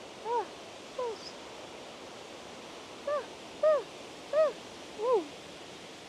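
Steady rushing of a waterfall below, with six short pitched calls over it, each rising then falling in pitch: two early on, then four evenly spaced about two-thirds of a second apart.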